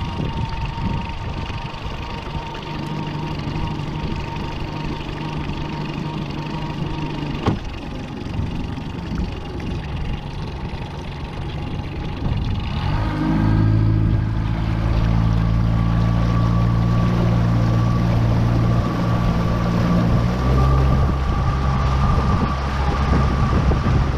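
Mercury 60 hp outboard motor running under way on a new boat during its break-in run. About halfway through, the throttle is opened up and the engine note gets louder and stronger, then holds steady, with wind and water noise underneath.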